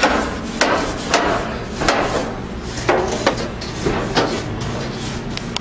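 A series of uneven knocks, about nine in under six seconds, over a steady low hum.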